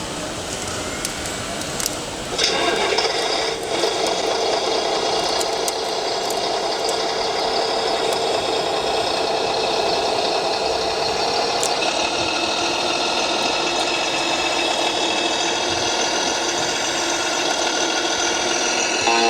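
Radio-controlled model truck running: a steady mechanical whirring drone that sets in about two seconds in, with light rattling and clicks over it.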